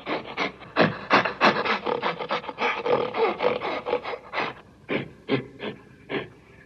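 Gorilla sound effect: a rapid run of short, breathy, harsh bursts, about five a second, that slow to fewer, wider-spaced bursts after about four and a half seconds.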